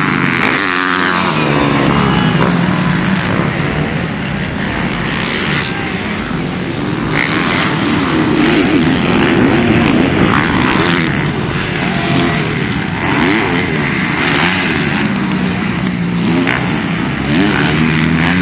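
Motocross dirt bikes' engines revving up and down as they race around the track, the pitch rising and falling with each gear change and throttle.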